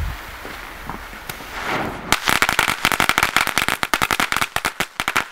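Small crackling ground firework: the lit fuse fizzes, then about two seconds in it breaks into a rapid string of sharp crackling pops, like a little machine gun, with no letup.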